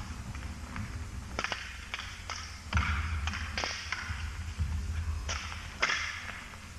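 Peking opera performers' stage fight with no music: feet stamping and landing on the floor and swung weapons swishing, making a string of sharp knocks and thuds at uneven intervals.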